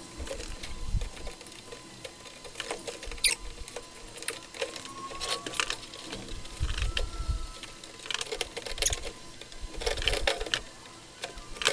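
Metal roof-rack feet clicking, knocking and scraping as they are worked into a camper shell's roof rails, in scattered irregular bursts.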